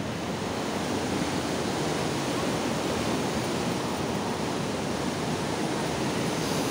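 Water rushing through a dam's gates: a steady, even rush with no break.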